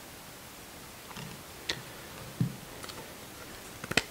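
A few faint, scattered light clicks and one soft knock as a wooden jack plane is handled and its iron is set to project from the sole, with a sharper double click near the end.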